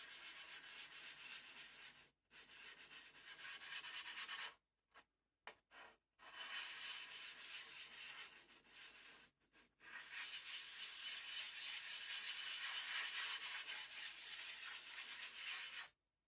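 A 1000-grit aluminium oxide sharpening stone rubbed back and forth on a glass plate in a silicon carbide powder slurry, a steady gritty scraping: the stone being lapped flat. It pauses briefly a few times and stops shortly before the end.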